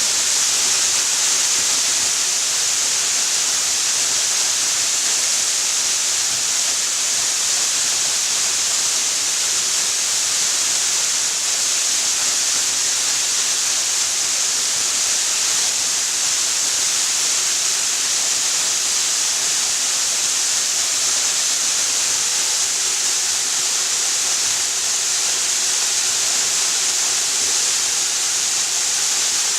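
Waterfall pouring steadily: an unbroken rush of falling water, heavy in hiss and without change.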